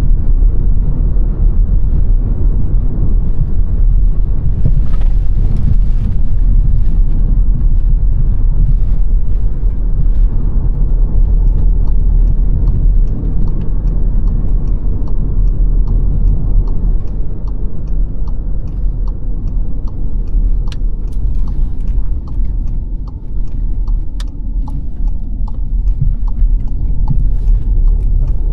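Car driving on the road: a steady low rumble of tyres and engine, with scattered small clicks and ticks in the second half.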